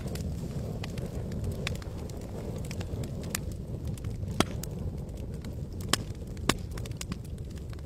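Campfire burning: a steady low rush with scattered crackles and pops, three sharper pops standing out a little past halfway and near the end.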